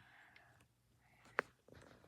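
Lego plastic bricks being handled, with one sharp click as pieces snap together about a second and a half in, amid faint rustling of the parts.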